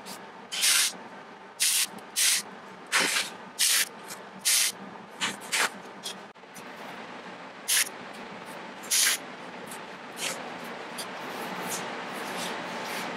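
MIG welder laying tack welds, sped up: about ten brief crackles of the arc, coming thick in the first two-thirds and more sparsely after.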